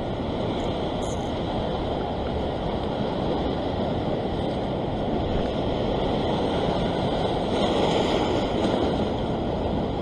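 Ocean surf breaking and washing over a rock shelf, a steady rush that swells a little about eight seconds in.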